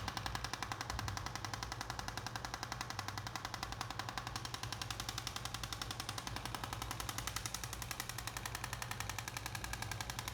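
Handheld shockwave therapy device pulsing against the lower back at raised power and speed: a rapid, even train of clicks that holds steady throughout.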